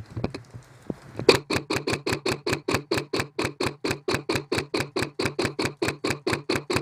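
Airsoft gun firing a long, even string of shots, about six a second, starting about a second in and running for some six seconds over a steady low hum.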